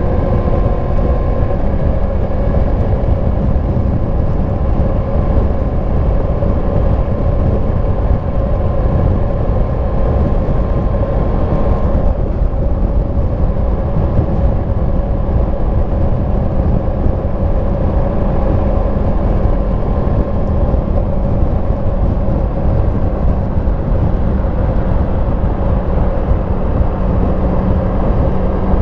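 2022 Yamaha MT-10 SP's crossplane inline-four running through its stock exhaust at a steady pace on the road, over wind and road noise. The engine note shifts about twelve seconds in.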